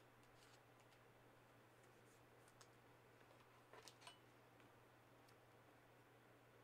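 Near silence with a few faint clicks of trading cards being handled, the strongest a short cluster about four seconds in, over a faint low hum.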